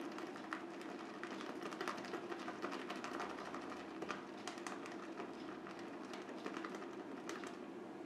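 Shaving brush working lather: a dense run of soft crackling clicks over a steady low hum.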